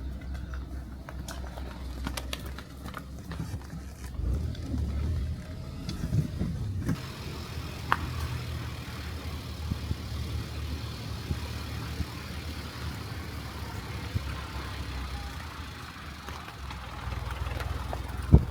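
Car engine running with a steady low rumble; about seven seconds in, a wider hiss of road or air noise joins it.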